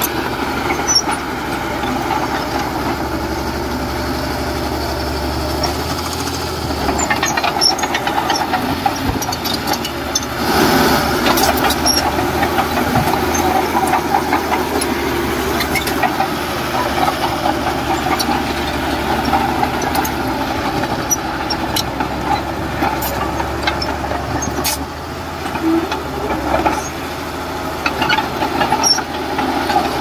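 Heavy diesel engine of an earth-moving machine running steadily, with scattered metal clanks and rattles. It swells louder about ten seconds in.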